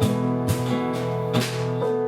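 Instrumental worship music: strummed acoustic guitar holding steady chords, with a sharp strum or beat about once a second.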